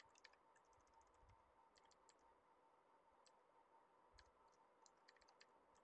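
Faint, scattered keystrokes on a computer keyboard, coming in short irregular clusters in near silence.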